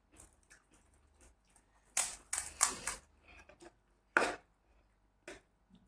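Close-miked crunching and chewing of crisp fried snack food, with a cluster of loud crunches about two seconds in and another about four seconds in.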